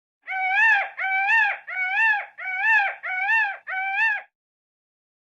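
Peacock (Indian peafowl) calling six times in a quick, even series, each call a loud, ringing note that rises and then dips slightly before cutting off.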